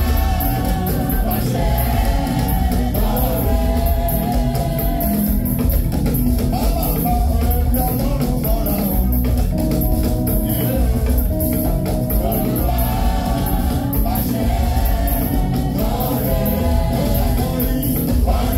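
Gospel music: several voices singing together over a band with a strong bass line, steady throughout.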